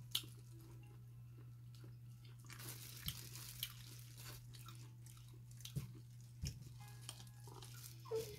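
Quiet chewing and mouth sounds of a person eating pieces of fried pork by hand, with a few short clicks scattered through. A faint steady hum runs underneath.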